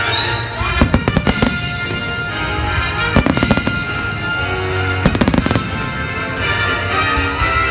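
Aerial fireworks exploding overhead in clusters of sharp bangs and crackle, about a second in, a little after three seconds and again around five seconds, with music playing throughout.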